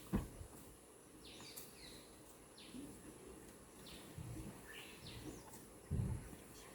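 Faint short bird chirps, each sliding down in pitch, repeated several times at irregular intervals. A sharp knock comes right at the start and a low thump near the end.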